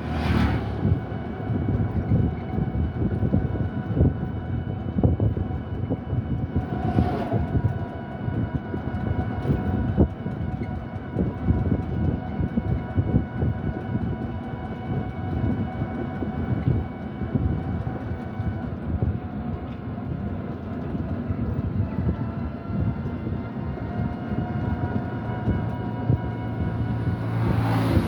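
A running vehicle, probably heard from on board: a steady rumble with many uneven knocks and a faint steady whine above it.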